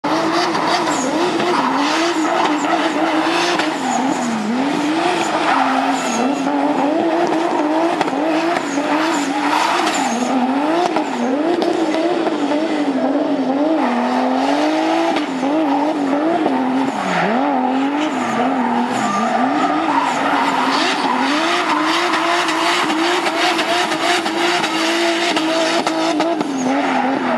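Drift car sliding sideways with its tyres squealing and skidding, while the engine revs climb and drop again and again as the throttle is worked through the drift.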